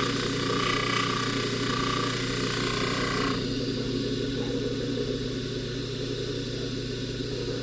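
Bench jewelry polishing buffer running with a steady motor hum. For about the first three seconds a higher hiss rides over it as the gold chain is held against the spinning buffing wheel, then it stops and only the motor hum remains.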